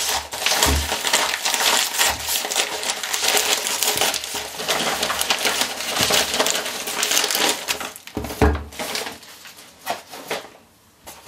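Yellow padded paper mailer being torn open and crumpled by hand: dense crinkling and rustling full of small crackles, with a few low thumps, the loudest about eight seconds in.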